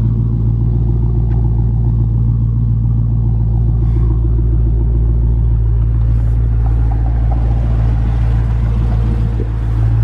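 Dodge Hellcat's supercharged 6.2-litre Hemi V8 idling steadily, warming up after its first start in about three months.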